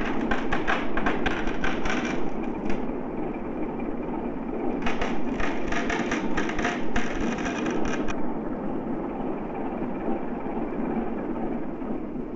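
Sea ice cracking and grinding against an icebreaker's bow over a steady rushing rumble. Dense runs of sharp cracks come in the first few seconds and again from about five to eight seconds in.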